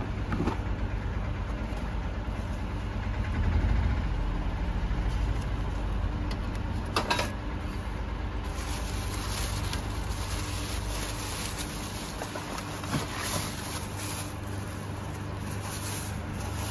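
Handling of a portable gas stove's hard plastic carry case and its plastic wrapping: a few sharp clicks and knocks as the case is opened, then crackling plastic as the stove is lifted out. Under it runs a low rumble that fades in the last few seconds.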